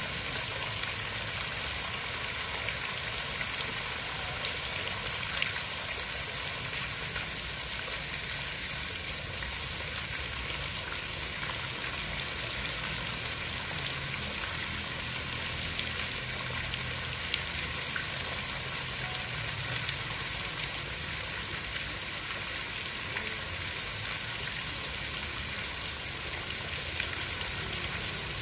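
Steady, even hiss of water, with faint scattered ticks over a low rumble, unchanging throughout.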